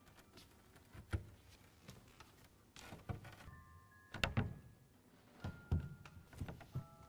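A ballerina's pointe shoes striking a hard stage floor in irregular, scattered taps and knocks, several leaving a brief ringing tone.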